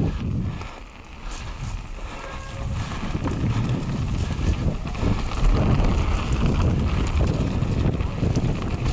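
Mountain bike rolling fast down a stony, gravelly forest trail: a steady rumble of tyres over gravel and rock with scattered rattles and knocks, and wind buffeting the microphone. The noise drops briefly about a second in.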